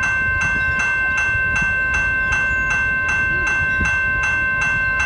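Railroad crossing bell ringing steadily, about three strikes a second, over the low rumble of a coal train's loaded hopper cars rolling past.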